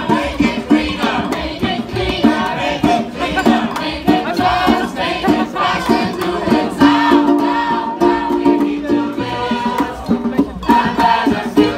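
A group of singers singing a song together in chorus, accompanied by an acoustic guitar.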